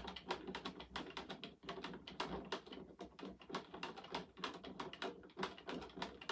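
Film developing tank being agitated by twisting the rotator in its lid: the film spool and spindle clank and click around inside the tank in a rapid, irregular run of small clicks, several a second. The tank is filled with water for the film's pre-soak.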